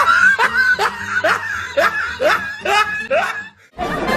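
A person laughing in a rhythmic string of short rising laughs, about two a second, over background music; the laughter stops about three and a half seconds in and the music carries on.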